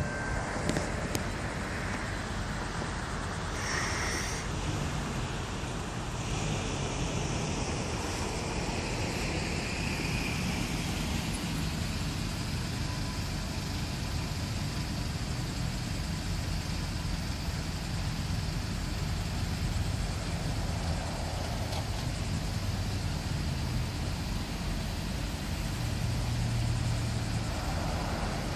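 Steady low engine rumble with road traffic noise, holding level with only a slight swell near the end.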